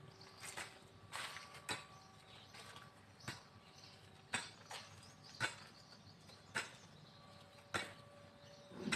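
Metal-bladed hoe chopping into garden soil again and again, about a dozen sharp strikes at an uneven pace of roughly one a second, loosening the earth around the plants.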